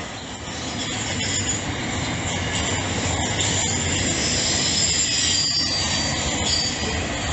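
Empty grain wagons of a freight train rolling past: a steady rumble of steel wheels on rail with irregular clicks and clunks, and a thin high wheel squeal through the middle.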